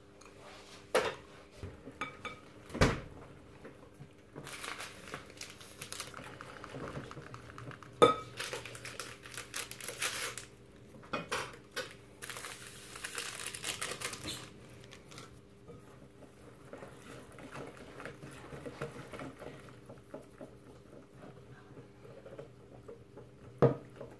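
Small metal wire whisk beating an egg, sugar and crème fraîche batter in a glass bowl: stretches of rapid scraping and swishing, with sharp clinks of metal against the glass now and then.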